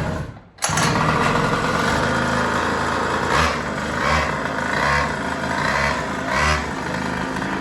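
Small Chinese-engined pocket bike engine running, starting abruptly about half a second in, with several short throttle blips in the middle of the stretch.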